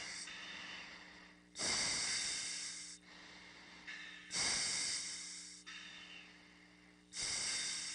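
A pilot's quick breaths through an oxygen mask microphone during the anti-G straining maneuver at about 5 G: three sharp rushes of air roughly every three seconds, each cutting in suddenly and fading over about a second, between breath-held strains. A faint steady hum runs underneath.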